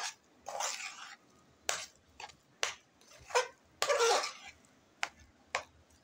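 Spoon scraping and knocking against a metal pan while stirring a thick mash of boiled chicken and chana dal with spices, in a string of irregular scrapes and clinks.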